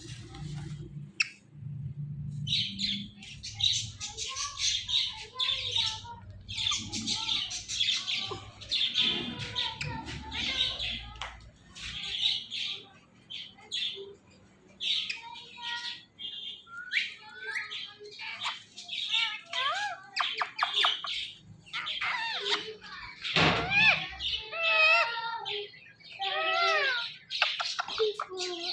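A pair of ringneck parrots squawking and chattering in quick runs of harsh, high calls, with some pitched, wavering calls in the later part.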